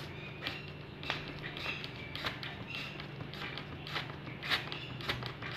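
DOMS retractable eraser rubbed hard back and forth over pencil shading on paper: a run of irregular short scratchy strokes. A steady low hum lies underneath.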